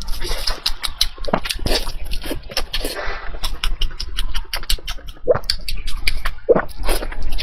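Close-miked chewing and mouth sounds of a person eating: a dense, irregular run of wet clicks and smacks, with a few short squelches.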